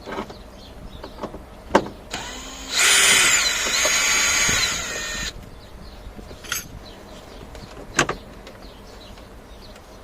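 A small power tool's motor spinning out a 10 mm dashboard bolt, a whine lasting about three seconds whose pitch slides up and down. A sharp click comes shortly before it and another a few seconds after.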